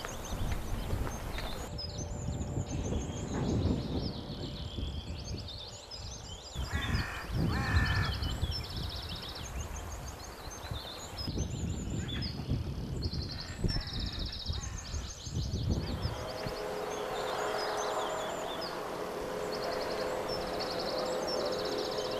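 Rural outdoor ambience: small birds chirping in short repeated trills, over a low uneven rumble, with a couple of harsher calls about seven seconds in. From about sixteen seconds the rumble drops away and a steady hum comes in under the chirping.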